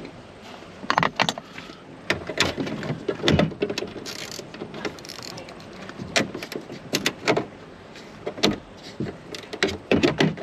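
Small hand driver turning out the bolts of a truck's dash-top speaker cover: irregular clicks and knocks of the tool on the bolts and the plastic dash trim.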